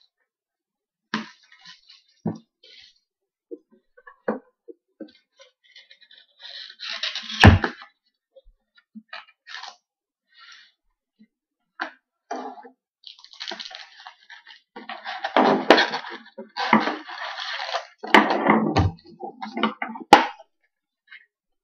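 Hockey trading cards and their foil pack wrapper handled at close range: scattered light taps and clicks, stretches of rustling, and one thump about seven and a half seconds in.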